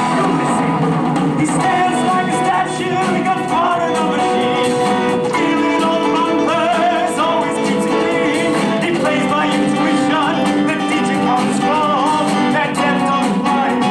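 Live rock stage-musical number: a band with guitar and drums plays loudly while the cast sings over it.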